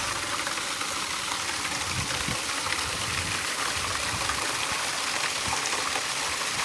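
Water gushing from a large pipe outlet in a heavy, steady stream and splashing onto a tractor's rotavator.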